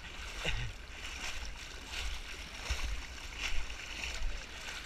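Legs wading through thigh-deep water, which sloshes and splashes in swells with each stride, over a steady low rumble.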